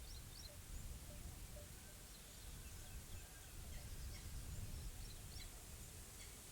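Faint outdoor nature ambience: small birds chirping in short, high notes throughout, with a few lower calls, over an uneven low rumble and a steady hiss.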